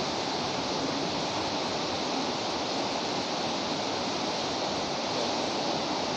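Steady, even hiss of background noise with no speech and no distinct events.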